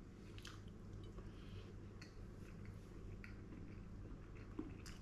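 Faint chewing of a mouthful of soft baked eggplant and zucchini parmigiana, with a few light clicks of a fork on the plate.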